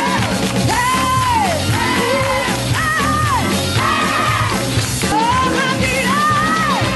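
Live pop-gospel music: a female singer belts a run of short, high held notes with vibrato over a full band with drums.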